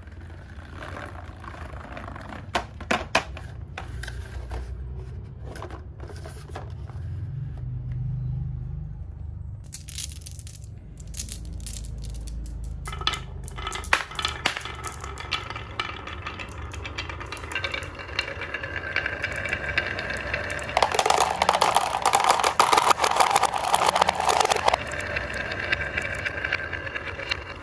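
Glass marbles rolling and clattering down a wavy-grooved wooden marble-run track, clicking against the wood and each other. Scattered clicks at first; the clatter thickens from about halfway and is loudest for a few seconds about three quarters through.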